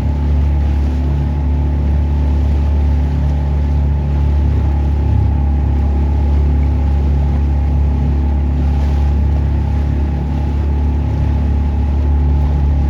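Small motorboat engine running steadily at constant speed, a loud continuous hum.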